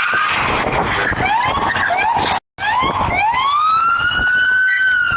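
Police car siren: a few quick rising yelps, a brief cut-out about halfway, then one long rising wail that levels off high and holds. A steady noisy rush runs underneath in the first half.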